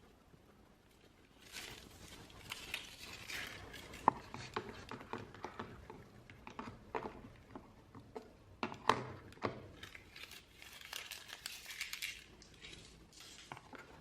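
Packaging being handled and opened: crinkling and rustling of wrapping, with irregular clicks and taps, the sharpest about four seconds in and again about nine seconds in.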